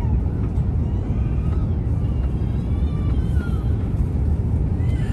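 Cabin noise heard from a seat inside an Airbus A350 on final approach: a steady low rumble of engines and airflow.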